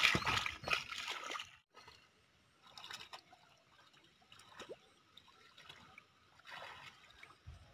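Hands splashing and sloshing in shallow muddy water while groping for field snails, louder for the first second or so, then only faint trickles and small splashes.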